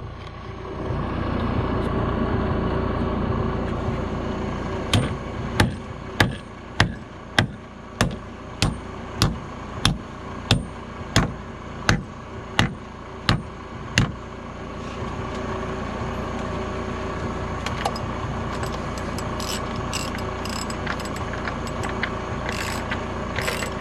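A steady mechanical hum, with a run of about fifteen evenly spaced sharp knocks, a little under two a second, from about five seconds in to about fourteen seconds in.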